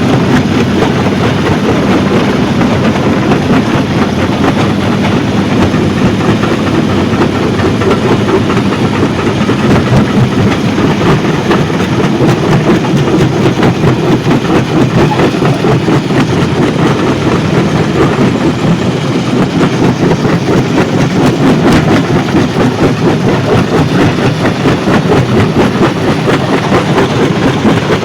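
Stone crushing plant running: a loud, steady mechanical rumble with a fast, continuous clatter of rock and machinery.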